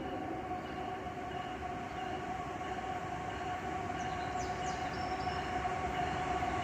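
A fast-moving train rolling past: a steady rumble and rush of wheels on rail. A faint steady tone and short high dings repeating about twice a second sound over it.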